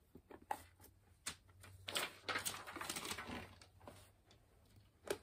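Quiet handling noises at a table: a few soft taps, then a rustle lasting about a second and a half from about two seconds in.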